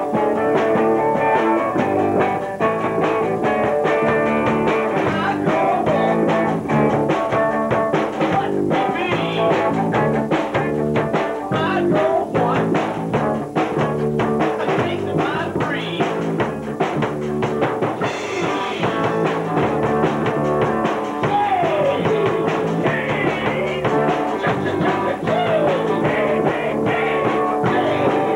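Small rock band playing: electric guitar and drum kit, with regular drum hits under the guitar.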